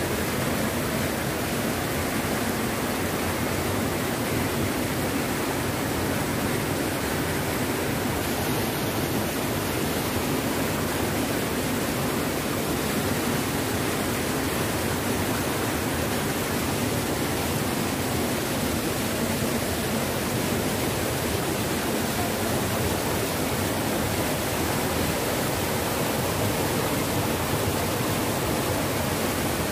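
Shallow, rocky river rushing over stones and around boulders: a steady, even rush of water.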